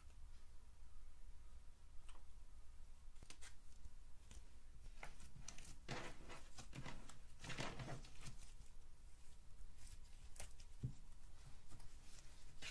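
Brown slime handled by hand: faint, scattered crackles as white granules are spooned onto it, then a denser run of sticky pops and crackles about six to eight seconds in as the slime is pressed and folded.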